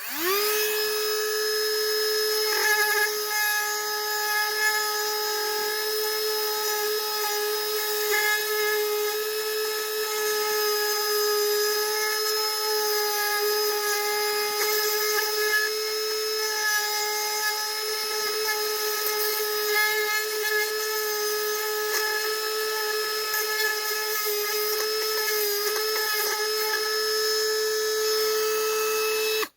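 Dremel rotary tool with a grinding stone running as a steady high whine while grinding fiberglass out of a gouge in a boat hull, taking it back to fresh fiberglass so a patch will bond. It spins up at the start and cuts off at the end.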